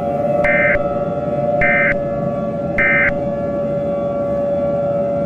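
Three short buzzing data bursts of an Emergency Alert System end-of-message signal, about a second apart, over a steady two-note drone with noise beneath it.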